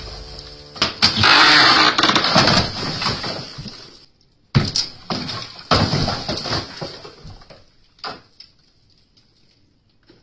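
Mud-and-lath ceiling being broken up from above: sharp blows and the crash and rush of clay fill and wooden laths falling through into the room below, in irregular bursts, the loudest rush about a second in. The crashes thin out and die away near the end.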